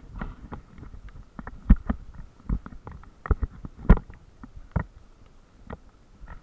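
Water splashing and sloshing against a half-submerged action camera's waterproof housing, heard muffled, with irregular low thumps and knocks. The loudest knocks come just under two seconds in and about four seconds in.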